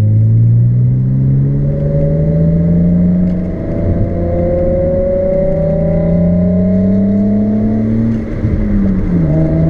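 Car engine pulling under acceleration, its pitch climbing steadily, with a gear change about a third of the way in. Near the end the revs drop.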